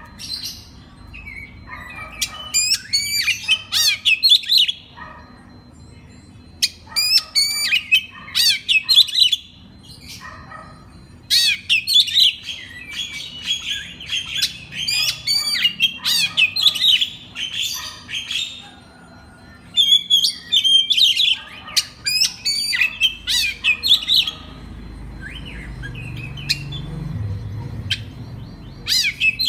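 Oriental magpie-robin (kacer) singing loudly in fast bursts of chirps, trills and whistled notes, with pauses of a second or two between phrases and quieter calls near the end.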